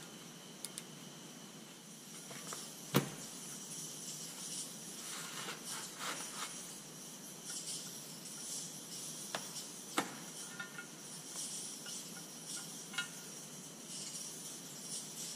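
A Detroit 3-53 engine front cover and its parts being handled on a workbench while new seals are fitted. There are a few sharp metal knocks and clicks, the loudest about three seconds in, with rustling of gloved hands in between.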